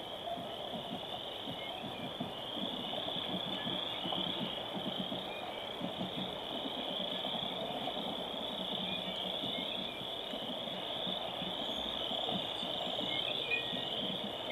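Outdoor stadium ambience: a steady high chirring of crickets over a low murmur of the crowd in the stands.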